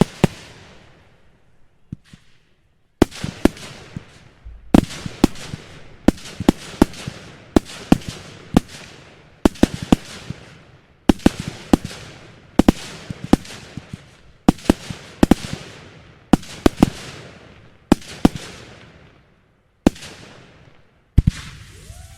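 Fireworks display: aerial shells bursting in a rapid series of sharp bangs, often in quick pairs or triples, each trailing off. The bangs come about every half second to second, after a sparser start.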